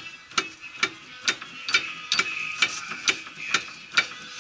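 Ratchet wrench clicking in a steady rhythm, about two sharp metallic clicks a second, each with a brief ring.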